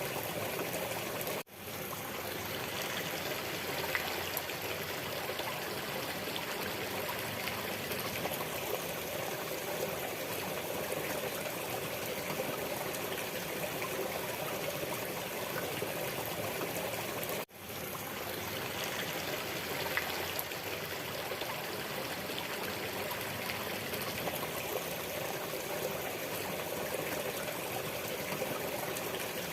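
Waterfall water rushing steadily. It cuts out briefly twice, about a second and a half in and again some sixteen seconds later, then fades straight back in.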